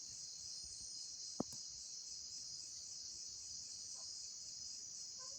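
Cricket trilling, a steady high-pitched chirring that doesn't let up, with one sharp click about a second and a half in.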